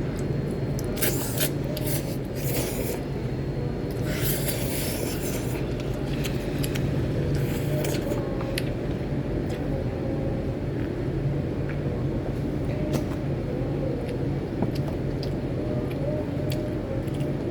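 Noodles being slurped and chewed: a few short noisy slurps in the first five seconds, then small wet mouth clicks. A steady low hum runs underneath.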